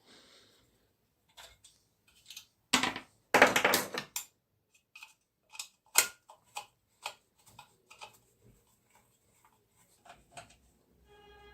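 Hand work on chainsaw parts: scattered clicks and taps of metal parts and tools, with a louder run of scraping about three seconds in.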